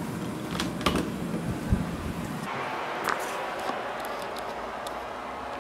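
Clicks and low thumps of a bedroom door being opened and someone stepping into the room, mostly in the first two seconds. After that the room is quieter, with a few faint ticks.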